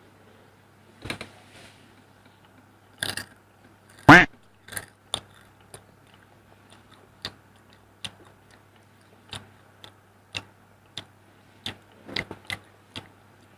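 Close-miked chewing of fried chicken: irregular sharp crunches from the crispy coating. A short voiced 'mm'-like sound comes about four seconds in, over a steady low hum.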